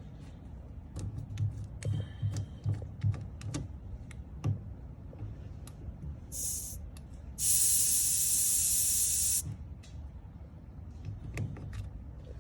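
Pressurised air hissing out of a valve on the stove's gas line, which is held under air test: a brief spurt, then a steady two-second hiss that cuts off sharply. Light knocks and ticks of handling come before and after.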